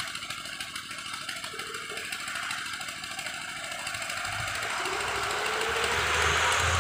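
SANY crawler excavator's diesel engine and hydraulics running with a fast, even clatter. About four seconds in it works harder: a deep hum and a rising whine come in, and the sound grows louder toward the end.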